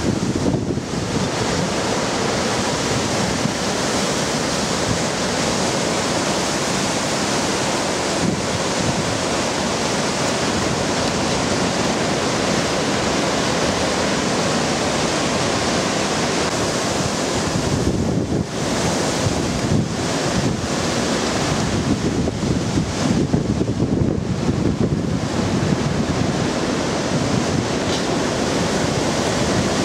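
Hurricane wind blowing hard through trees with driving rain, buffeting the microphone. The noise is loud and steady, with a short lull a little past halfway and gusts coming and going after it.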